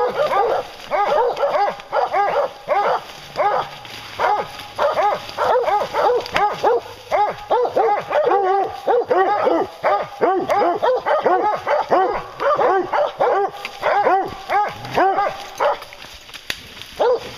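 A pack of English hounds baying at a bear, several dogs barking over one another in quick, repeated bawls with hardly a pause. The barking thins out briefly near the end.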